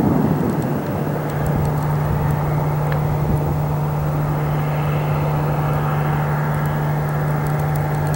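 A vehicle engine running steadily at idle, giving a constant low hum with a rumbling haze over it.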